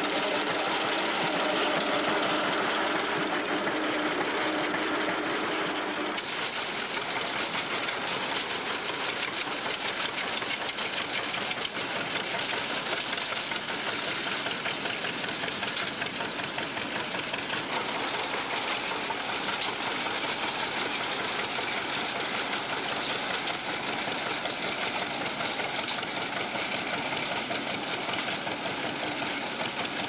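Grain binder cutting rice: a steady mechanical clatter and rattle from the reel, cutter bar and moving parts. The deeper part of the sound drops away about six seconds in.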